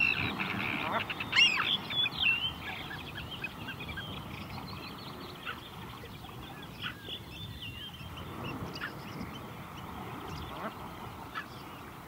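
Birds calling: many short, overlapping calls, densest in the first three seconds and then scattered, over a steady low background hush.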